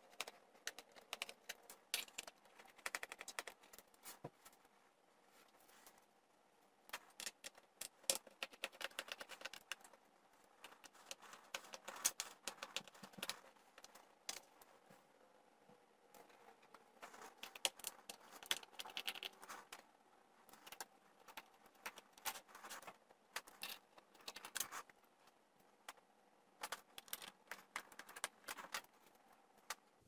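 Quick, irregular clicking and ticking of a screwdriver turning out and lifting away the small screws of a MacBook Pro's aluminium bottom case, in sped-up footage. The clicks come in clusters with brief pauses between screws.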